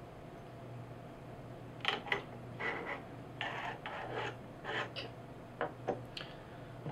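Small metal air-rifle parts being handled on a desk: a run of short, irregular scrapes and clicks, starting about two seconds in and stopping about a second before the end.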